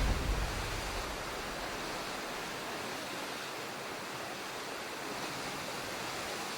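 Steady, even hiss of sea and wind at a coastal headland, with no engine or horn tones. Background music fades out just at the start.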